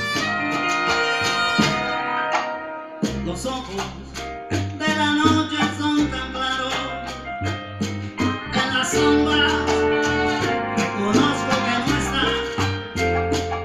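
Live band music played through the stage loudspeakers at an outdoor concert. The bass drops out for a moment about three seconds in, then the band comes back in.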